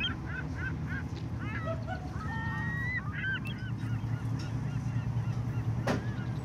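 Waterbird calling: a quick run of short calls, then a few longer drawn-out calls, over a low steady background hum. A single sharp click near the end.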